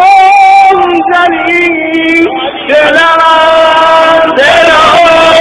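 A man singing a Shia zikr chant in long, held notes that waver and slide in pitch, with a short breath about two and a half seconds in.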